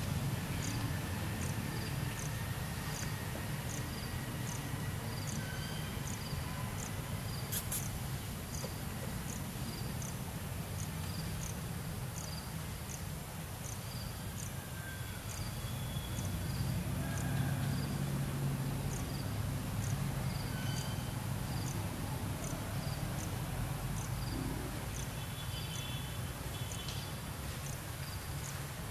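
An insect chirping steadily about once a second, a short high note, over a low outdoor rumble, with one sharp click about eight seconds in.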